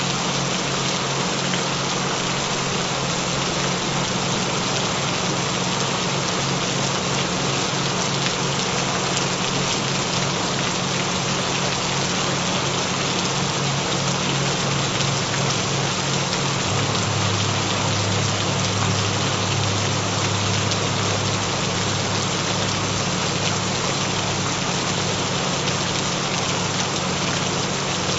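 Steady recorded rain, an even dense hiss, layered over low steady hum-like tones. One of the low tones grows louder a little past halfway through.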